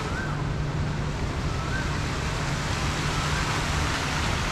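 Steady city outdoor ambience: an even hiss over a low traffic rumble, with a few faint short high chirps about every second and a half.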